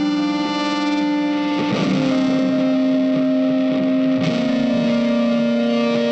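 Background music: electric guitar with distortion playing long sustained notes that change pitch every couple of seconds.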